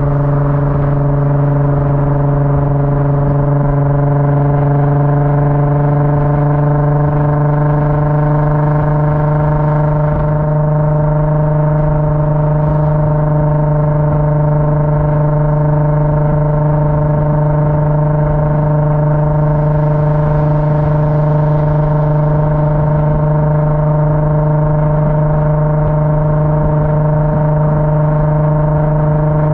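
Car engine running at a steady speed: a constant drone that holds one pitch with no revving.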